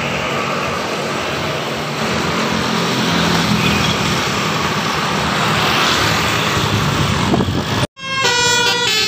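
Heavy road traffic, with large vehicles' engines and tyres passing close. About eight seconds in, after a sudden cut, a bus's telolet horn starts playing its stepping multi-tone tune.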